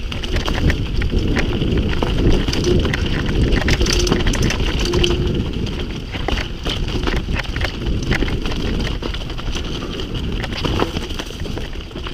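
Mountain bike ridden over a rough dirt trail, heard from a camera mounted on the bike or helmet: a constant low rumble of tyres and wind on the microphone, with rattling, clicks and knocks from the bike over roots and stones.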